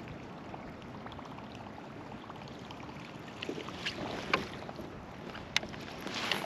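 Water lapping and splashing against a kayak on a river, with a steady wash of water noise and, in the second half, a few sharp clicks and knocks.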